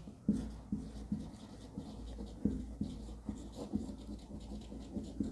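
Handwriting: irregular short strokes and taps of a pen on a writing surface, as a definition is written out.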